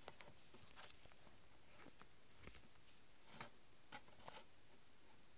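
Near silence with faint, scattered ticks and rubs from a small homemade leather percussion cap box being handled.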